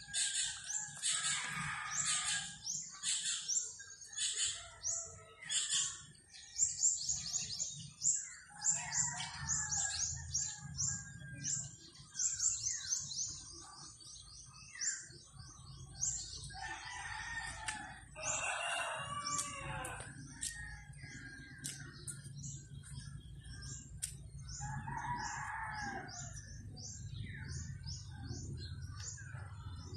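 Small birds chirping in quick, continuous short high notes, several a second. A rooster crows over them, a long crow with a falling end about two-thirds of the way in and a shorter call later. A low steady rumble runs underneath.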